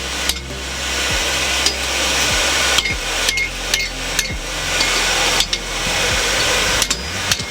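Hand hammer striking a 5 mm mild steel firepot on a small anvil, some blows ringing briefly. The blows are irregular, roughly one every half second to second. A steady rushing noise runs underneath.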